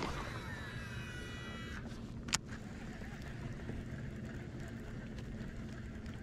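Shimano SLX baitcasting reel's spool whining as a cast pays out line, the whine sliding down in pitch over about two seconds as the spool slows, then a single sharp click about two and a half seconds in, under a steady low hum.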